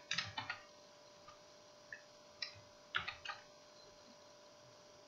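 Computer keyboard keystrokes clicking in a few short clusters with pauses between, over a faint steady hum.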